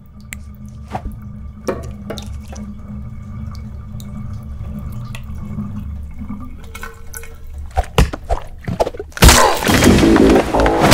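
Water dripping in a tiled shower room, scattered drips and taps over a low steady hum. About nine seconds in, loud music cuts in suddenly.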